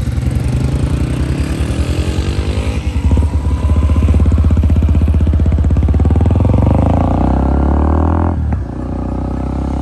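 Motorcycle engine running and pulling away, getting louder about three seconds in and rising in pitch as it accelerates, with a sudden brief dip about eight seconds in before it runs on steadily.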